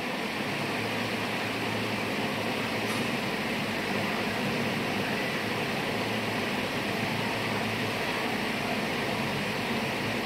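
Steady hum and hiss of air conditioning, even throughout, with no distinct knocks or clanks.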